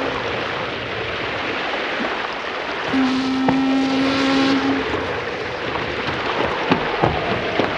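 A ship's horn sounds one long, steady blast about three seconds in, lasting nearly two seconds, over a continuous hiss of sea and wind. Near the end come several sharp clicks.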